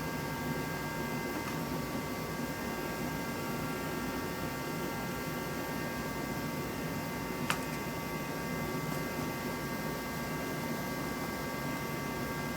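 Steady background hum and hiss with several constant high tones, and a single sharp click about seven and a half seconds in.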